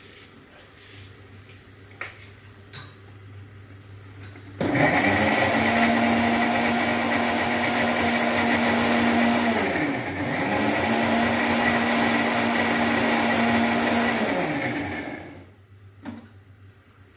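Electric mixer grinder with a steel jar grinding tomato and coriander chutney: a few light clicks, then the motor starts abruptly a little under five seconds in and runs steadily. It dips briefly and picks up again about ten seconds in, then winds down about fifteen seconds in.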